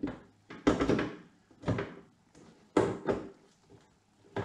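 Leather saddlebag knocking against its quick-disconnect mount and the bike as it is pushed and shifted by hand: about five irregular clunks, the strongest about a second in and near three seconds in.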